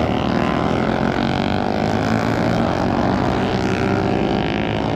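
Motorcycle engines running steadily, a loud drone of several overlapping engine tones.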